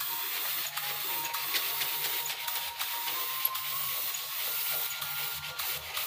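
Compressed-air spray gun with a gravity-feed cup hissing steadily as it sprays wood stain.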